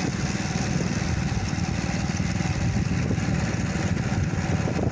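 Motorcycle engine running steadily on the move, with wind buffeting the microphone.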